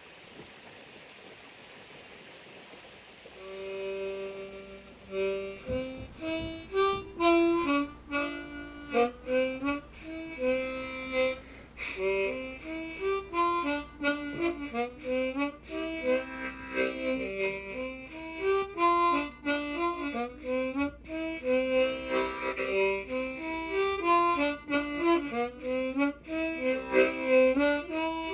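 An old, oversized harmonica with extra low notes playing a lively traditional dance tune, notes moving quickly with several sounding together as chords. For about the first three seconds only a steady rushing of a stream is heard before the harmonica comes in.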